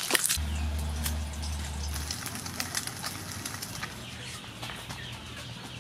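Hot soybean oil crackling and hissing lightly in a frying pan over a charcoal stove just after the fried egg is lifted out, with faint bird chirps behind it. A low hum sounds for the first couple of seconds.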